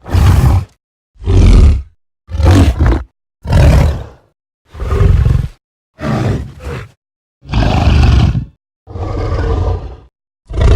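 Deep, loud giant-ape roars and grunts used as creature sound effects for Gigantopithecus. They come as a string of separate short calls, roughly one a second, each under a second long and cut off cleanly with silence between.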